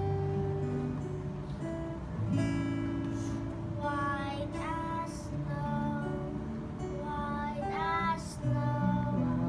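Acoustic guitar strumming chords, with children's voices singing along from about four seconds in.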